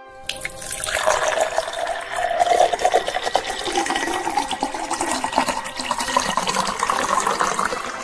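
Water poured into a clear glass, splashing steadily, the pitch of the filling rising gradually as the glass fills.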